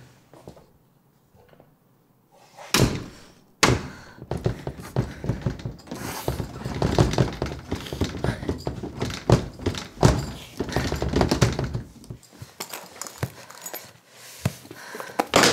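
Heavy blows on a wooden door. After a quiet start come two single thuds about a second apart, then several seconds of rapid, violent pounding and rattling, then a few scattered knocks and one more hard hit at the end.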